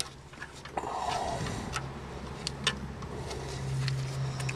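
Ratcheting gear wrench clicking in short irregular runs while tightening down a belt tensioner pulley. A low steady hum comes in partway through.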